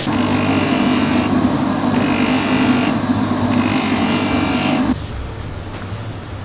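Workshop machine running with a steady motor hum and a rasping hiss that comes and goes, then cutting off about five seconds in.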